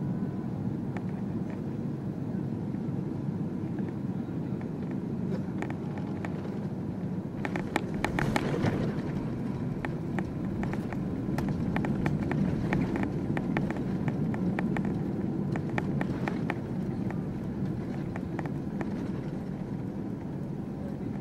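Cabin noise of a Boeing 777-300ER landing: a steady low rumble, then a sudden burst of rattles and knocks about a third of the way in as the wheels touch down, followed by louder rumble and cabin rattling as the airliner rolls out and slows on the runway.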